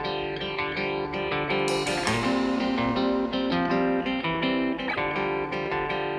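Background music with guitar playing, steady notes changing every second or so.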